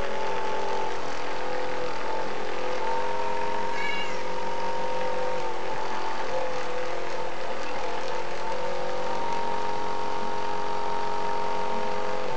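Electric back massager's motor humming steadily, its pitch dropping and rising as it presses against a cat. A short meow about four seconds in.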